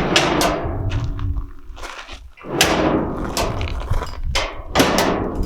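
Steel toolbox drawers running on under-drawer roller slides and being slammed shut. There are three sharp bangs, each with a rattling decay, and a rolling rush between them.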